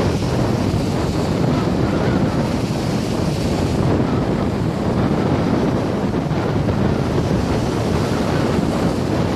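Wind rumbling steadily on the microphone over the wash of waves breaking on the shore.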